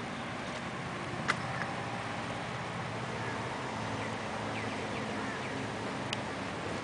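Low steady hum of distant go-kart engines under a few short bird chirps, with one sharp click about a second in.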